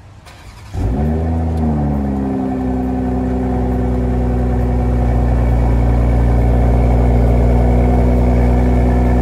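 2021 BMW M440i's 3.0-litre turbocharged inline-six starting: it catches suddenly about a second in, the revs flare and fall back, and it settles into a steady idle.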